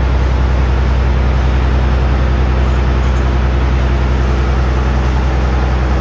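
Steady, unchanging low machine drone with a hiss over it.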